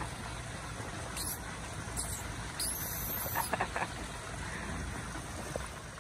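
Small monkeys giving several short, high squeaks and chirps, most of them between one and four seconds in, over a steady low rumble.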